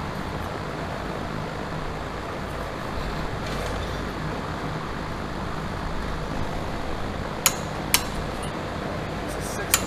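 Steady low background hum, then about three sharp metal clicks near the end as a long socket wrench is fitted to and pulled on the bolts of a corn head knife roll.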